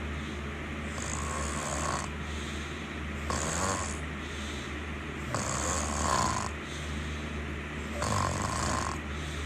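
Snoring during sleep, about four breaths in a slow, even rhythm, one every two to two and a half seconds, over a steady low hum.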